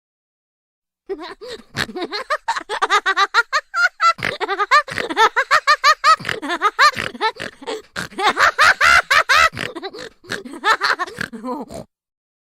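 Cartoon laugh sound effect: a long run of rapid, pitched 'ha-ha' pulses, several a second, starting about a second in and stopping shortly before the end.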